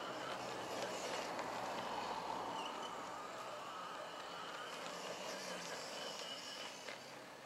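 Brushless electric motor and drivetrain of a 1/10-scale RC short course truck running as it drives across grass, a steady sound that fades a little toward the end.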